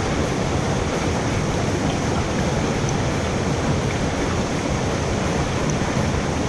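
Headwater mountain stream rushing, a steady, unchanging wash of water.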